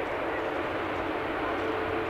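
Airbus A380's four Rolls-Royce Trent 900 turbofans running at low taxi thrust: a steady jet rush with a steady droning tone in it.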